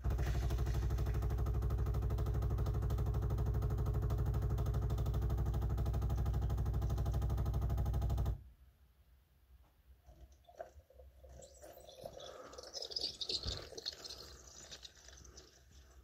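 Bosch Tassimo pod coffee machine's pump buzzing loudly and steadily for about eight seconds, then cutting off suddenly. A few seconds later there is softer hissing and gurgling as the brew begins.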